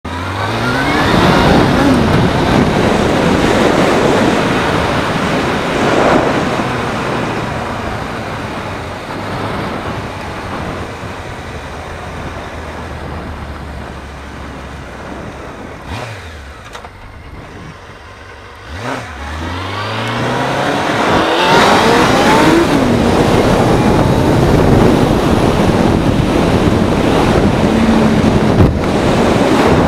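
Honda CBR600F3 sport bike's inline-four engine revving up through the gears in a string of rising sweeps. About halfway the revs fall away to a quieter low run, then climb again in repeated rising pulls under hard acceleration.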